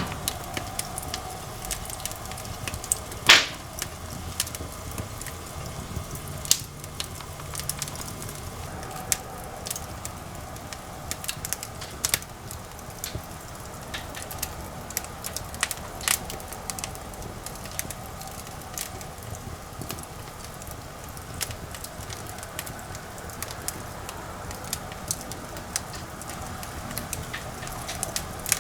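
Firewood burning in a fireplace, crackling with irregular pops and snaps, one sharp loud pop about three seconds in.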